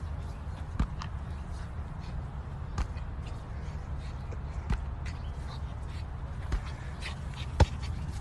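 Inflatable beach ball bouncing on the ground: a light thud every one to two seconds, the loudest near the end, over a steady low rumble.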